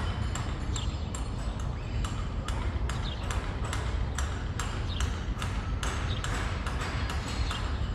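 Floor tiles being changed: a steady run of sharp knocks, about three a second, each with a short metallic ring, over a low rumble.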